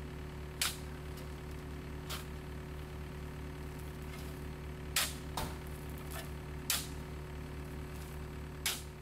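A shovel striking and scraping the gravelly floor of a dug foundation trench: five short, sharp strokes a second or two apart, over a steady low hum.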